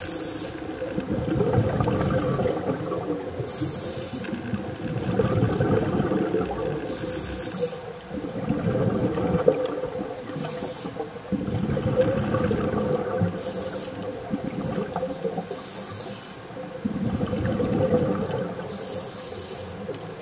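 Scuba diver breathing through a regulator underwater: a short hiss of inhaled air about every three seconds, each followed by a longer bubbling rush of exhaled air. A steady faint hum runs underneath.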